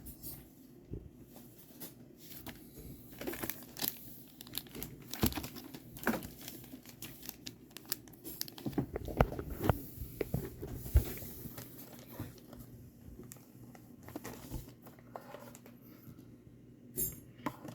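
Unboxing packaging being handled: irregular crinkling and rustling with scattered clicks and taps.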